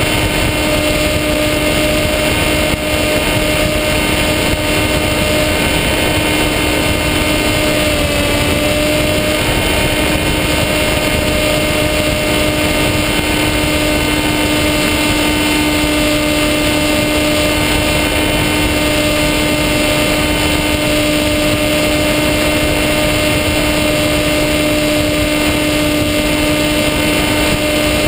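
Electric motor and propeller of a SkyWalker FPV model plane, heard from the camera on board, running steadily at cruise as a constant whine over a rushing hiss. The pitch dips briefly about eight seconds in.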